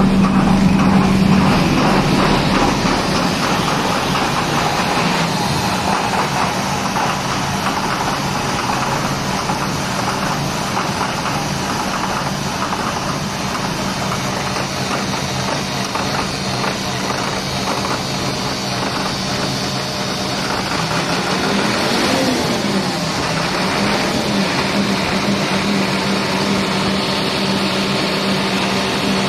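Large diesel generator-set engine running steadily, a constant loud machine hum with no change in speed.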